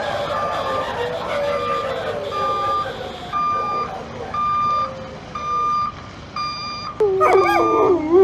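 A vehicle reversing alarm beeps steadily, a little faster than once a second, over a pack of canines howling in long falling howls. About seven seconds in, a short burst of sharper yelps rises and falls in pitch.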